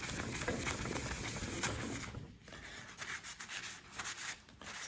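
Cloth wiping and rubbing over a PVC surface, cleaning it with isopropanol to prepare it for gluing a patch. The rubbing is steady for about two seconds, pauses briefly, then goes on in shorter, uneven strokes.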